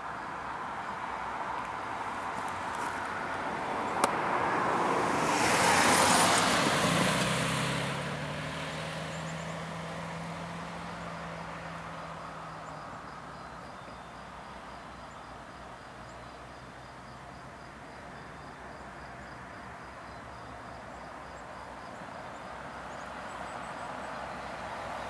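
A road vehicle passing close by, its tyre and engine noise swelling to a peak about six seconds in and fading away over the next couple of seconds, with a sharp click just before the peak. A low steady hum follows for several seconds, then only quieter outdoor background.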